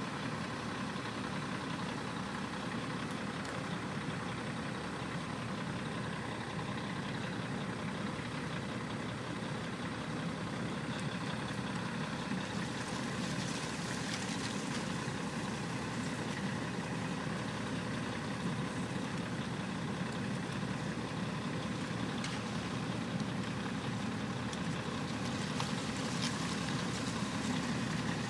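John Deere 9650 STS combine running steadily while shelling corn, a little louder near the end.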